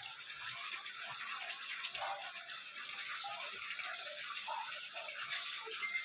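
A covered pot of brown stew fish simmering: a faint steady hiss with small irregular bubbling pops.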